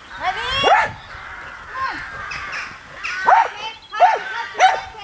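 An animal calling repeatedly: a series of short, arched calls, the loudest about a second in and in the last two seconds.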